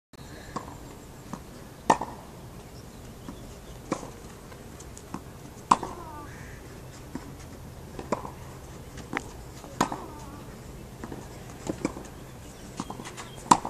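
Tennis rally on a clay court: sharp racket-on-ball strikes about every two seconds, the nearer hits louder, with fainter ball bounces between them.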